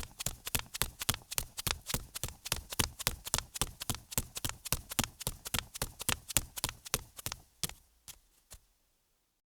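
Bare feet slapping on concrete in quick, even steps, about four to five sharp slaps a second, slowing to a few last steps and stopping about eight seconds in.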